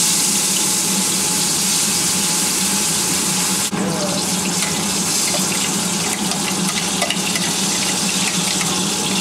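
Steady, loud sizzling of a hot, still-wet wok as ground spice paste for fried rice is fried in it, with a brief break in the hiss a few seconds in.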